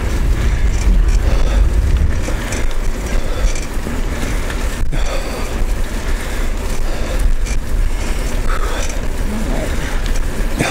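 Steady low rumble of wind buffeting the microphone, with tyre noise, as a Kulana tandem bicycle rolls along the road.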